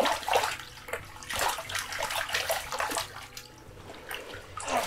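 Water splashing in an ice-fishing hole in irregular bursts as a hooked cutthroat trout thrashes at the surface and is grabbed by hand.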